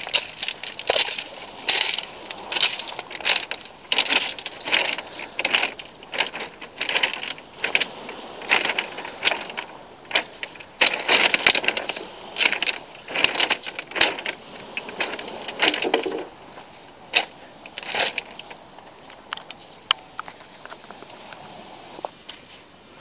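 Footsteps crunching on beach pebbles, about one and a half steps a second, growing fainter and more scattered near the end.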